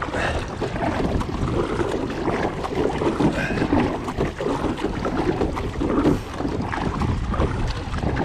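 Wind buffeting the microphone over water noise from a kayak being paddled hard, the sound rising and falling unevenly.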